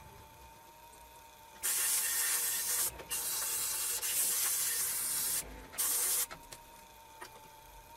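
Compressed-air blow gun hissing in three bursts, the middle one the longest, as dirt is blown off the engine.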